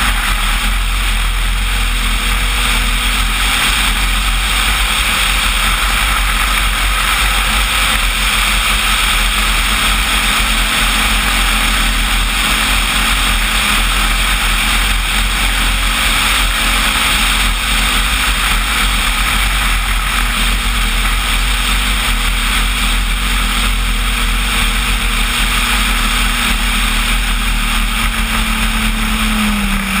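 Motor and propeller of a large radio-controlled Cessna 185 floatplane running at a steady speed in flight, with air rushing over the airframe. The propeller's pitch drops a step near the end.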